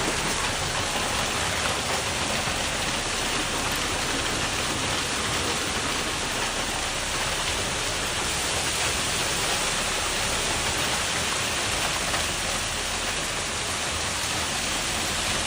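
Heavy rain pouring down in a steady, dense rush during a severe storm.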